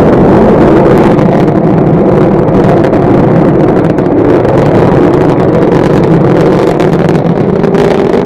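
Rocket engine firing: a loud, steady, crackling rumble that cuts in abruptly and fades out near the end.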